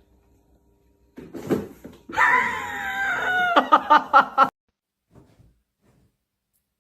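A high-pitched voice gives a drawn-out scream-like cry that falls in pitch, then breaks into a quick run of about five short pulses and stops, after a brief scuffle of noise.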